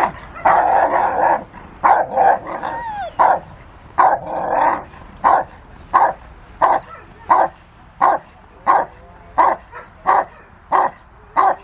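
Rottweiler barking at a protection-training helper. The first few seconds hold longer, drawn-out barks; after that come short, sharp barks at an even pace, about three every two seconds.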